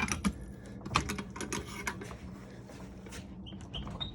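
Irregular sharp metallic clicks and knocks from a bench vise and workbench straining as a knife clamped in the vise is levered on with a pipe, thickest in the first two seconds, with a few short high squeaks near the end.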